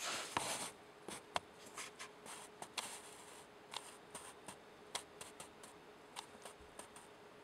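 Faint scattered clicks and light taps, with a short rustle at the start: small handling noises.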